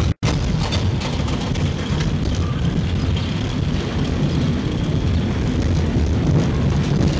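Schwarzkopf Wildcat steel roller coaster car running along its track: a steady low rumble from the wheels with wind on the microphone. The sound cuts out for a split second near the start.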